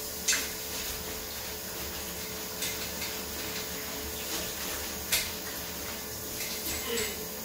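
Hands scrubbing a ceramic bathroom sink and chrome taps with a steel-wool scourer, with four sharp knocks and clicks as the scourer and hands strike the basin and taps.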